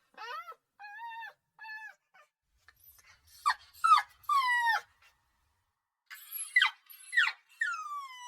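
Puppy crying: a few short whimpers, then louder high-pitched cries that slide down in pitch, in two bunches with a pause of about a second between them.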